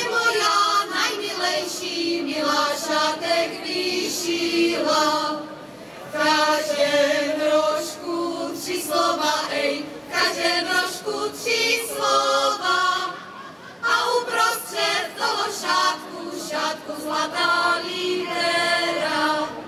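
A group of women singing a folk song together in phrases, with short breaks between the lines.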